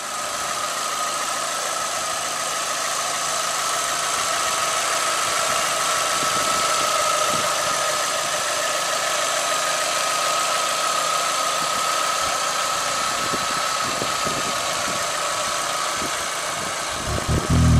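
Chevrolet Tornado's four-cylinder engine idling steadily in the open engine bay, with a steady high-pitched whine over the running.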